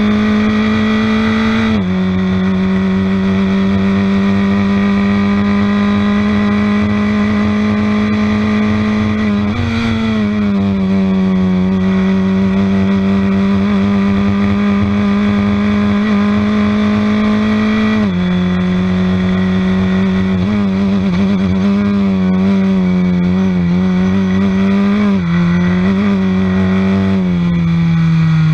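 Formula Ford race car's four-cylinder engine heard on board at high revs, holding a steady high pitch for long stretches, with sudden pitch changes at gear changes a couple of seconds in, around ten seconds in and around eighteen seconds in. From about twenty seconds the pitch wavers and steps down as the car brakes and downshifts for a corner.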